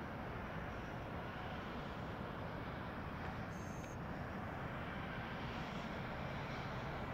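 Steady, distant jet-engine noise of a Boeing 787-9 airliner on the runway, an even rumble and hiss that neither rises nor falls. A brief high thin tone sounds about halfway through.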